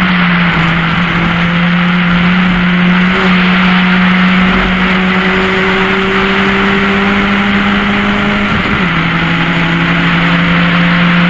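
Mk1 VW Golf race car's engine running hard at steady revs, heard from inside the cockpit over loud wind and road noise. The engine note steps down about three-quarters of the way through, then holds steady again.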